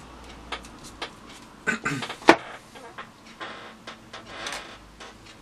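Small scissors snipping out waterslide decals and being put down on a tabletop: a handful of light clicks and rustles, with the loudest, a sharp clack, about two seconds in.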